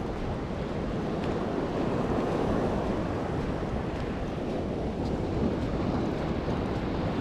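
Ocean surf breaking and washing up a sandy beach, with wind rumbling on the microphone.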